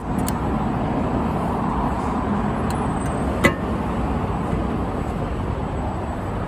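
Car fuel cap clicking as it is screwed tight, then a sharp snap about three and a half seconds in as the fuel filler door is pushed shut. Underneath is a steady background rumble.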